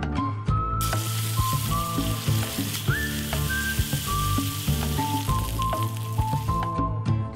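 Fillet steaks sizzling as they sear in a hot frying pan; the sizzle starts about a second in and cuts off near the end. Background music with a plucked melody plays throughout.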